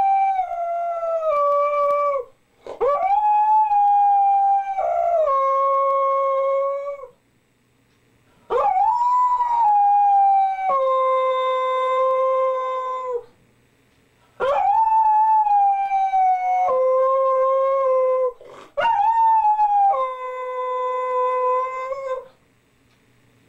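A husky howling: a run of long howls, each several seconds long, separated by short pauses. Each howl starts high and steps down in pitch.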